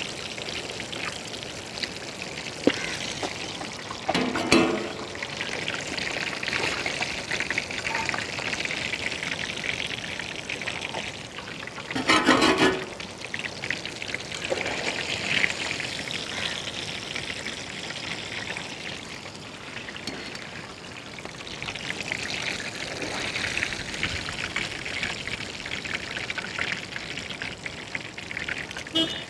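Karimeen (pearl spot) fish deep-frying in hot coconut oil in a large metal wok: a steady sizzle and bubbling of the oil. Brief louder clatters come about four and twelve seconds in.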